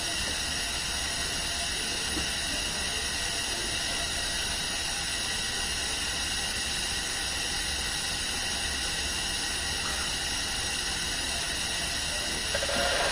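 Hospital room tone: a steady, even hiss with a low hum underneath, and a brief, slightly louder sound near the end.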